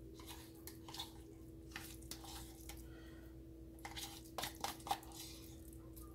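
Ricotta cheese being scooped out of its tub into a stainless steel mixing bowl: faint scrapes, soft squishes and light taps, several in quick succession between about four and five seconds in, over a steady faint hum.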